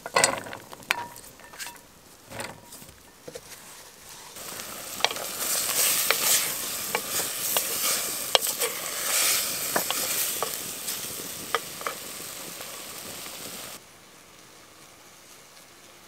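A few light clicks of small pieces dropped into an enamel bowl, then beef sizzling in a clay pot over a wood fire, stirred with a wooden spoon that clicks and knocks against the pot. The sizzle stops abruptly near the end.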